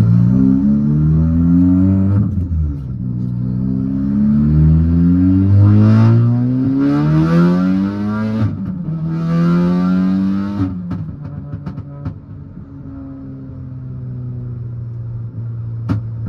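Tuned Mk7.5 Golf R's turbocharged 2.0-litre four-cylinder accelerating hard through several upshifts, its pitch climbing and then dropping at each shift, with a turbo whistle and intake hiss over the later pulls. About eleven seconds in it lifts off and settles to a steady low drone.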